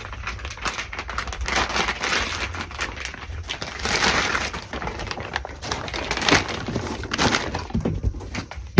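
Packaging crinkling and rustling as an exhaust muffler is pulled out of its box and unwrapped, with a sharp knock at the very end.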